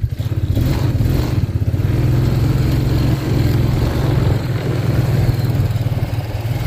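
ATV (four-wheeler) engine running steadily while it is ridden across grass; the engine note picks up and grows louder about half a second in.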